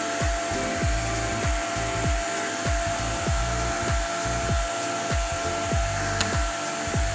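Electronic music with a steady beat of deep, falling bass kicks, over the steady whine and hiss of a running motor.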